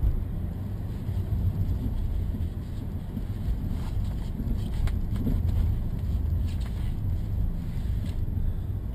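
A car driving on a road, heard from inside the cabin through a dashcam microphone: a steady low rumble of engine and tyre noise, with a few faint clicks about four to five seconds in.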